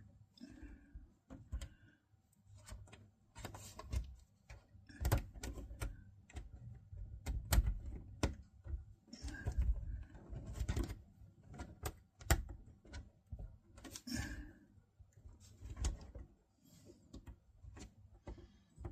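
Irregular small clicks and taps of plastic model railway sleepers being cut and fitted under the rails.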